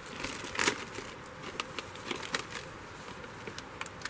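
Plastic snack wrappers crinkling and rustling in short, irregular crackles as food packets are handled.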